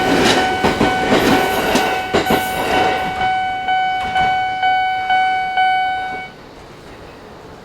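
A Japanese level-crossing alarm rings a steady repeated electronic ding, about two strikes a second, while a Chichibu Railway 6000 series express train finishes passing with wheels clattering over the rails. The train noise fades over the first three seconds, and the alarm cuts off about six seconds in once the train has cleared the crossing.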